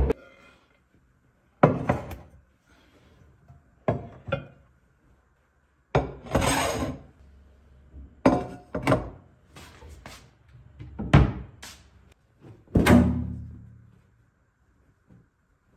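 Irregular knocks and thuds, about ten over the stretch, some sharp and a few trailing off in a brief rustle or ring.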